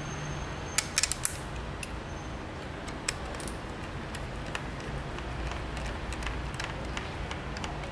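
A quick cluster of sharp clicks about a second in, another click about two seconds later, then scattered faint ticks over steady background noise: small parts and tools being handled during a drone build.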